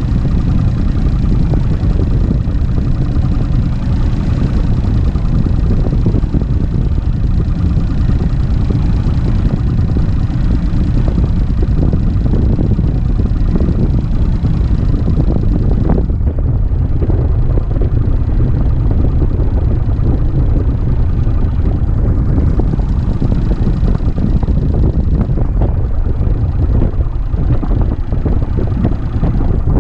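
Mercury Optimax 200 HP two-stroke outboard idling under a steady low rumble of wind on the microphone; about halfway through, the engine's higher tones drop away while the wind rumble goes on.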